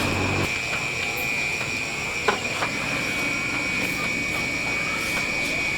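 Insects buzzing steadily in one high, unbroken tone, with two light clicks a little over two seconds in.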